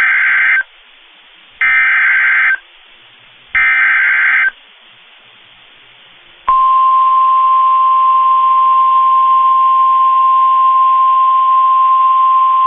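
Emergency Alert System SAME header: three screechy digital data bursts, each about a second long and a second apart. After a two-second pause of faint hiss, the single steady Weather Radio warning alarm tone starts about six and a half seconds in and holds, signalling a tornado warning.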